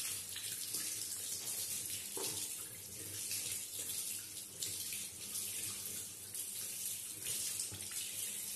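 Water running from a sink tap, the stream splashing over a spinning reel held under it and into the basin, the splash shifting as the reel is turned in the flow.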